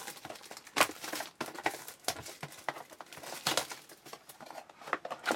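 Packaging of a trading card box and its pack being torn open and handled: wrapper crinkling and tearing, with irregular crackles and small clicks and one sharper click about a second in.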